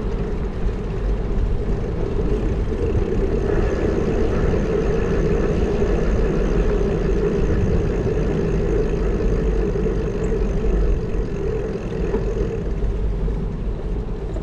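Steady wind rumble and road noise on a bicycle-mounted camera's microphone while riding, with a vehicle engine humming along for much of it.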